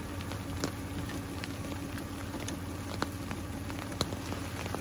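Rain pattering with scattered drips ticking irregularly, over a steady low hum from a vehicle engine idling.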